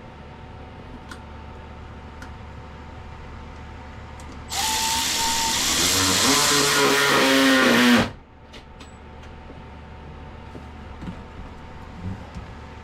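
Power drill running in one burst of about three and a half seconds, its pitch dropping as it slows under load, then stopping suddenly. A steady low hum runs underneath.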